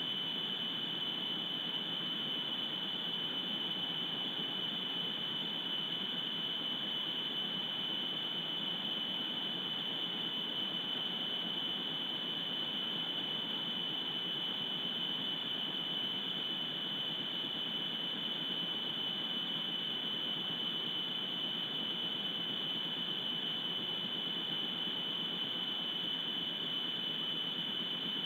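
A steady high-pitched electronic whine over a constant hiss, unchanging throughout.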